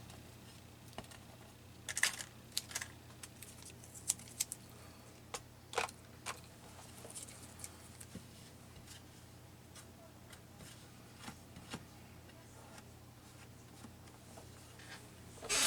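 Scattered small clicks and taps of paper pieces and small craft tools being handled on a work table, over a faint steady low hum.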